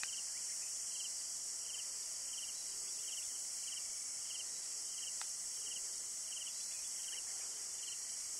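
Insect chorus: a steady high-pitched shrill of insects, with a cricket-like trilled chirp repeating about every 0.7 seconds. A sharp click sounds once, about five seconds in.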